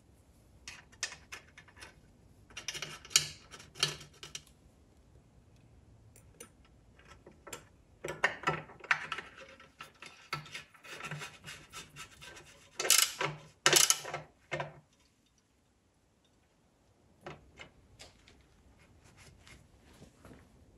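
Hands fitting the new oil filter and its hex-head cap into the oil tank of a 1955 AJS Model 18S: metal rubbing and scraping with clicks, in bursts, loudest in two sharp scrapes about two-thirds of the way through, then a few light clicks.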